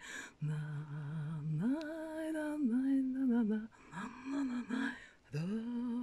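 A woman singing a slow wordless tune to herself, holding long notes that slide up and down, with a short break for breath about five seconds in.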